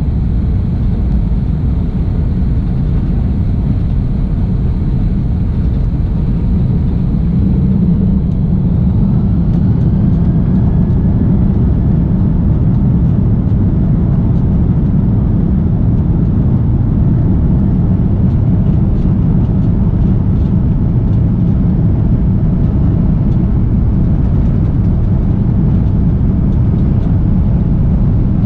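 Airbus A330-200's Pratt & Whitney PW4000 engines heard through the cabin window while taxiing: a steady low rumble. About eight seconds in it grows slightly louder and a faint rising whine comes in.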